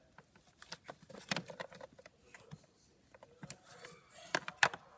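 Plastic dolls and toy furniture being moved around a dollhouse, making irregular light clicks and taps, with two sharper knocks a little past four seconds in.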